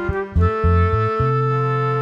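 Instrumental music: sustained melody notes over a low bass line that changes note several times.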